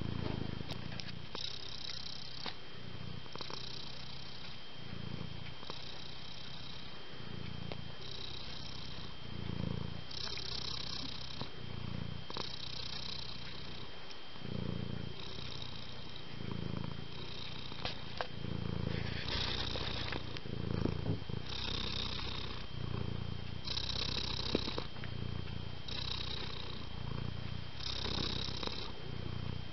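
Domestic cat purring steadily, swelling and easing with each breath about once every second and a half.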